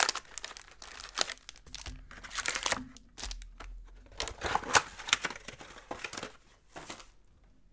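A cardboard box of 2019 Chronicles baseball cards being opened, with its foil-wrapped packs crinkling and rustling as they are pulled out and stacked, in irregular handling noises that stop about seven seconds in.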